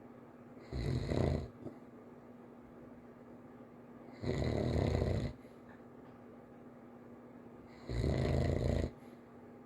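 A child snoring lightly: three snores about three and a half seconds apart, each lasting about a second.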